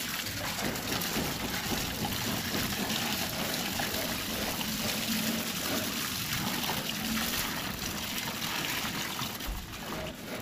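Water running from a hose and splashing into a muddy puddle around a PVC bore pipe during hand boring, a steady trickling wash.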